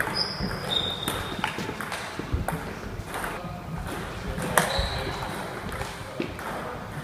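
Table tennis ball clicking on rubber paddles and bouncing on the table during fast rallies, an irregular run of sharp ticks, with a couple of short high squeaks near the start.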